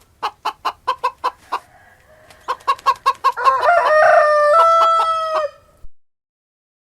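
A hen clucking in a quick run of short clucks, then breaking into a long, loud drawn-out call that steps up and down in pitch.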